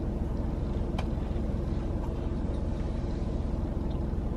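Steady low rumbling hum with a faint held tone, like a running engine or motor, and a single brief click about a second in.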